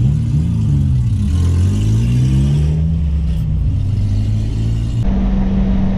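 Acura TL Type-S V6 with an aftermarket Endless RPM exhaust, heard from inside the cabin while driving. The engine note dips, then climbs as the car accelerates and holds steady. About five seconds in it changes abruptly to a steady, lower drone.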